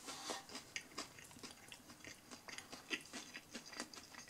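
A person chewing a mouthful of breaded chicken strip (Domino's Chicken Strippers), the coating crunching in soft, irregular crackles.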